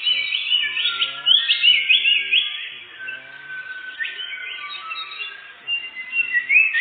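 Songbird singing a varied, rapid song of whistled notes and chirps, with a run of quick rising slurred notes about a second in.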